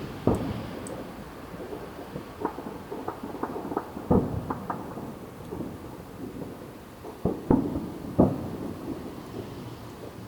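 Fireworks going off around the neighbourhood: irregular bangs and booms with rumbling echoes and smaller pops between them. The loudest reports come right at the start, about four seconds in, and as a pair near the eight-second mark.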